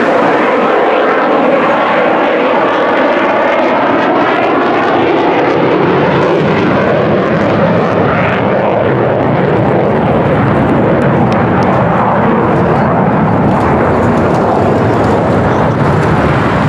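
Lockheed Martin F-35 fighter jet's Pratt & Whitney F135 turbofan running loud in a low pass overhead. The roar carries a sweeping, whooshing tone as the jet passes in the first few seconds, then goes on steadily as it moves away.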